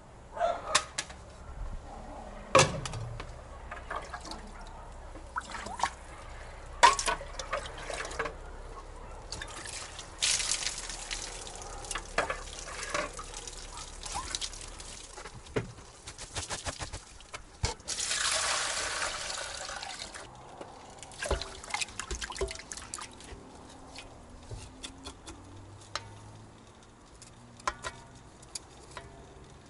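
Water poured from a bucket into a metal bowl, then splashing and trickling as horseradish roots are washed in it by hand. Scattered clicks and knocks of handling throughout, with one pour-like rush lasting about two seconds about two-thirds of the way through.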